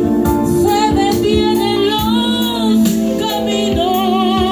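A woman singing with vibrato into a microphone over instrumental backing music.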